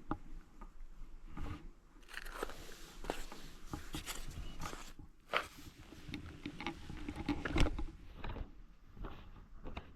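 Irregular crunching and clicking, a run of small sharp noises, with a sharper knock about five and a half seconds in and a louder one about two seconds later.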